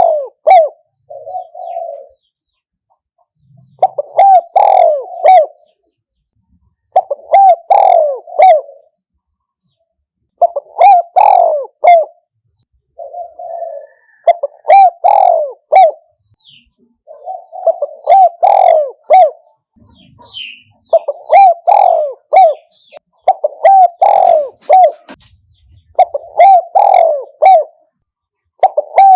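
Spotted dove cooing: a throaty phrase of several coos about a second and a half long, repeated about every three seconds, with a shorter, softer coo between some of the phrases. It is the call played back to lure wild spotted doves to a decoy trap.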